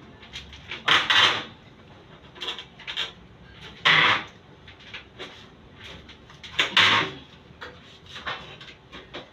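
Aluminum sliding door panel knocking and rattling against its frame and track while it is lifted and fitted into place: three loud clattering knocks about 1, 4 and 7 seconds in, with lighter clicks between.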